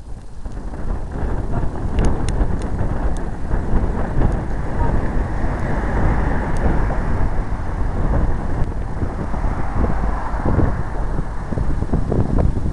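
Car traffic passing on a bridge roadway, mixed with wind rumbling on the microphone: a steady, loud noise with no distinct engine note.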